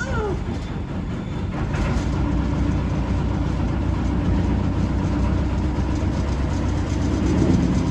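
Tour boat's engine running steadily while the boat is under way, a constant low rumble that grows a little louder about two seconds in.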